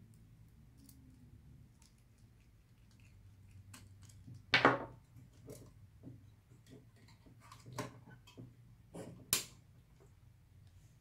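Scattered clicks and light knocks of a graphics card's plate and housing being handled and fitted by hand. The loudest is a short clatter about four and a half seconds in, with a few sharp clicks near the end.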